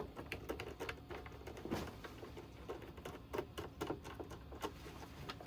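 Irregular small clicks and ticks of a screwdriver driving the corner screws that hold an oscilloscope's back cover.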